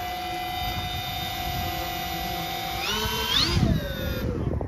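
Electric motors of an RC Avios Twin Otter model floatplane whining at a steady pitch, then rising sharply about three seconds in as the throttle goes up and falling away again near the end.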